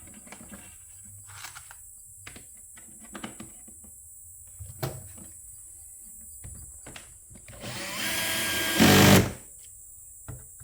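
Scattered light clicks and taps of handling screws, then near the end a drill driving a screw for about a second and a half. It ends in a loud, brief burst as the drill's clutch slips once the screw is tight.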